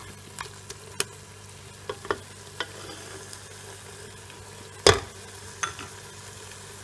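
Goat tripe frying in an aluminium pressure-cooker pot with a faint sizzle, while a black spoon stirs it and clicks and knocks against the pot; the loudest knock comes about five seconds in.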